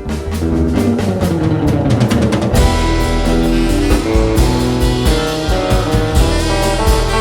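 Live ska band playing an instrumental passage: a falling run in the first couple of seconds, then the full band comes back in fuller and louder about two and a half seconds in.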